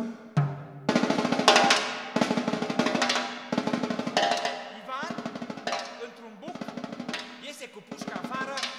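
Solo percussion: phrases of fast drum rolls and rapid strokes on snare-type drums, starting in earnest about a second in, with low ringing tones sustained underneath.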